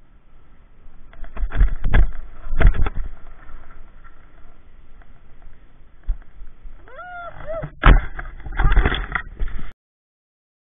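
Helmet-camera bike ride: wind noise and heavy rattling thumps as the bicycle jolts over bumps onto grass. About seven seconds in comes a short wavering cry from the rider, then a sharp knock and a burst of rustling and scuffing in the grass. The sound cuts off abruptly just before the end.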